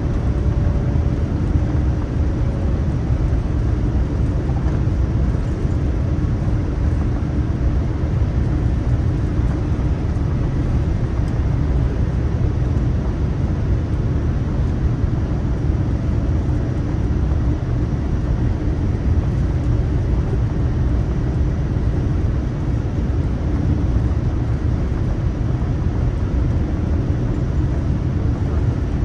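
Boeing 787-9 airliner heard from on board: a steady, deep rumble of engines and airflow with a faint hum.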